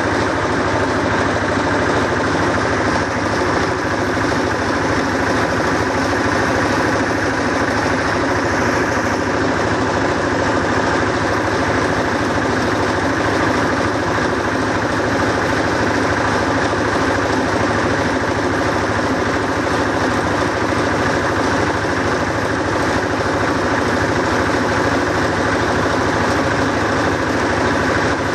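Steady drone of a small motor running at constant speed, with no change throughout.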